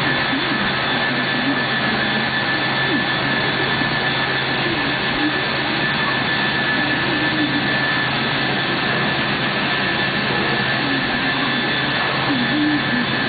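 Biesse Skipper 100 CNC panel boring machine running while it works a panel: a steady machine noise with a constant high whine, unchanging throughout.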